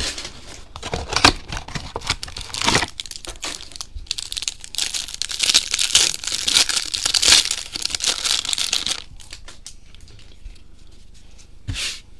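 Plastic trading card pack wrapper being torn open and crinkled in the hands. The crackle is busiest about five to eight seconds in, then dies down to a single short rustle near the end.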